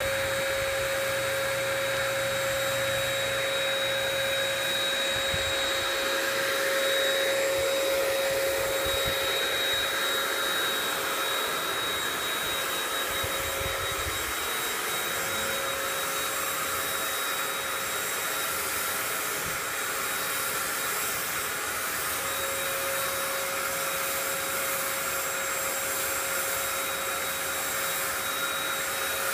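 HVLP paint sprayer's turbine blower running steadily with a constant whine, pushing air down the hose to the spray gun while it sprays Plasti Dip.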